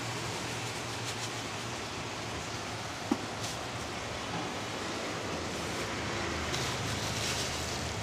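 Steady hiss with a low hum underneath, and faint rustles of dry green aquarium sand being sprinkled by hand into an empty glass tank. A single small click comes about three seconds in.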